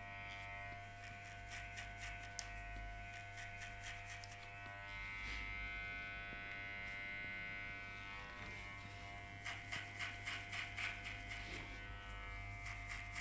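Electric hair clippers running with a steady buzz. Runs of short scratchy comb strokes through the hair come in the first few seconds and again near the end.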